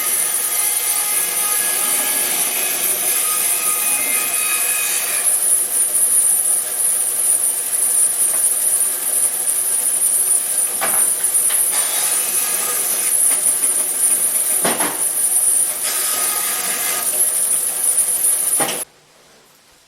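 Large 36-inch resaw band saw, converted to a 3 hp single-phase motor, running and cutting timber with a steady high hiss and a few sharp knocks. The sound cuts off suddenly near the end.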